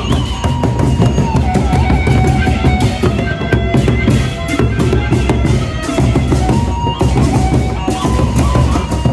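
Gendang beleq ensemble playing: large drums beating steadily, with clashing hand cymbals and a piping melody of held notes over the top.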